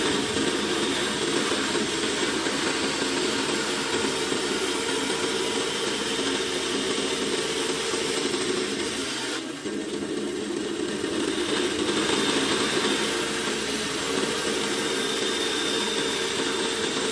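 Bandsaw running steadily, its blade cutting through a plywood board, with a brief dip in the sound about nine and a half seconds in.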